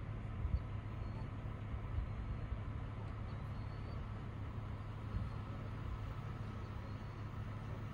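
Steady low hum of a car's engine and cabin, heard from inside the car.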